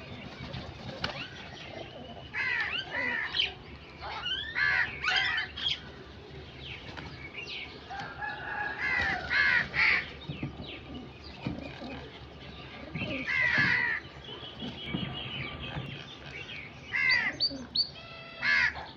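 Crows cawing in short bursts of harsh calls that come every few seconds.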